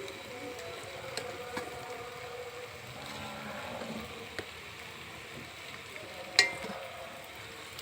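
Kitchen cooking sounds: a steady low hiss with a few light clicks, and one sharp metallic clink that rings briefly about six seconds in.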